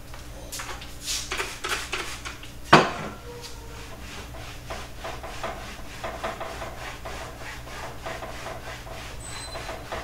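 Dishes and other kitchen items clinking and knocking as they are handled and set down on a wooden shelf, with one loud knock about three seconds in, then a cloth rubbing over the shelf.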